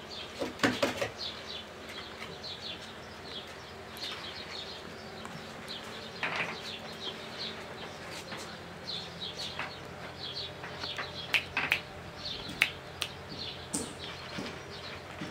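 Small birds chirping over and over in the background, with a few sharp knocks and a scrape as puppies' paws land and scramble on the stair treads.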